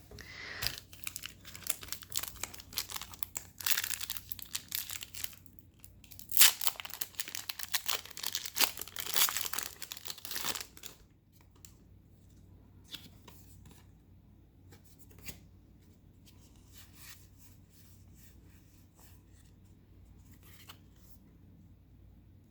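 A Pokémon TCG booster pack's foil wrapper being torn open and crinkled for about the first ten seconds, then only faint, scattered ticks of the cards being handled.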